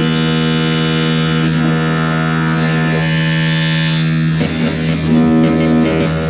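Dark MIDI arrangement of a phone ringtone: dense, loud synthesized chords held for a couple of seconds at a time over a steady low note, the harmony shifting twice.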